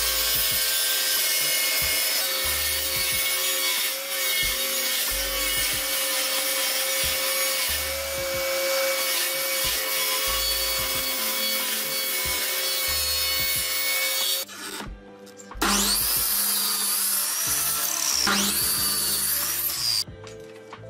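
Table saw running and ripping a wooden board, a steady motor whine under the rasp of the blade in the wood. The sound breaks off about two-thirds of the way through, then a second loud stretch of sawing follows, its pitch wavering, and stops shortly before the end.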